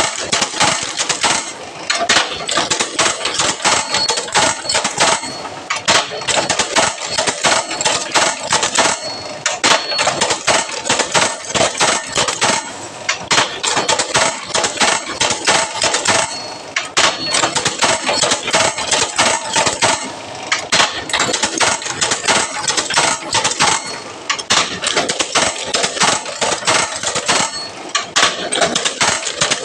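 Automatic wire ring-bending machine for No. 8 gauge wire running and turning out rings: a continuous metallic clattering of its feed rollers and bending gear. It works in repeating cycles, with a brief lull about every three to four seconds.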